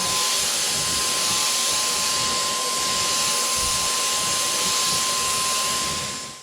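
Wood router with a round-over bit running steadily: a rushing hiss with a thin steady whine, cutting off abruptly near the end.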